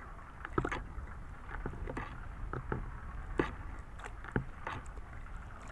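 Scattered sharp clicks and knocks from hands working a cast net, picking fish out of the mesh, over a steady low rumble.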